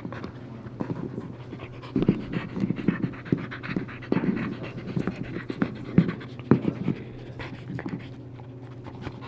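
A dog gnawing and chewing on a chew bone: irregular wet crunches and clicks of teeth on the bone, with the dog's breathing heard between bites.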